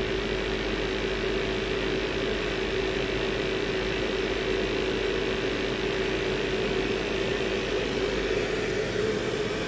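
Gas-fired commercial water heater running with its burner lit while being brought up from half fire toward high fire: a steady mechanical hum of burner fan and flame with one constant tone.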